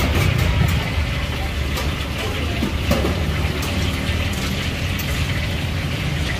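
A knife cutting through a crusty toasted baguette on a stone board, then metal tongs moving the slices into a wooden bowl, with a few sharp clicks, over a steady low rumble.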